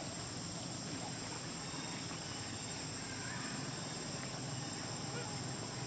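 Outdoor natural ambience: a steady high hiss with a few faint, short chirping calls scattered through it.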